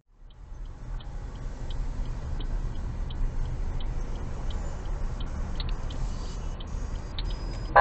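Steady engine and road hum heard inside a car, with the turn-signal indicator clicking evenly, about three clicks a second. A sudden loud sound comes at the very end.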